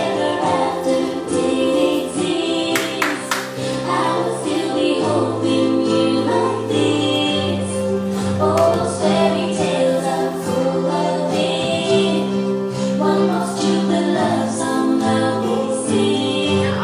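Music: several voices singing together over a held, sustained accompaniment.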